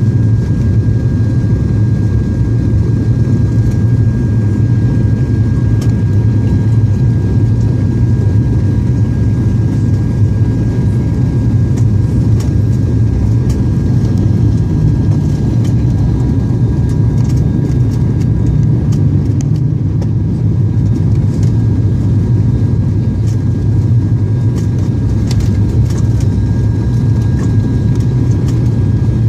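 Cabin noise of an ATR 72-200 turboprop airliner in flight: the steady, loud, low drone of its twin propellers and engines, with two faint constant whining tones above it.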